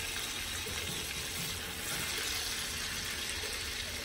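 Salmon steaks frying in melted butter and oil in a skillet: a steady, even sizzle.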